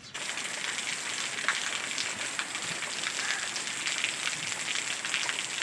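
Steady rain falling on a hard surface: a dense, even hiss dotted with many small drop ticks.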